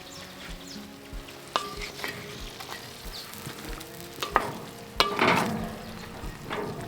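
Food frying and sizzling in a cast iron potjie pot as it is stirred, with a few sharp clinks of a utensil against the pot. The loudest clink comes about five seconds in, with a short surge of sizzling right after it.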